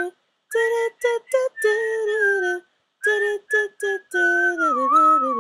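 A woman's voice singing a short unaccompanied melody in separate sustained notes, with a brief pause about halfway through and the last note sliding down near the end.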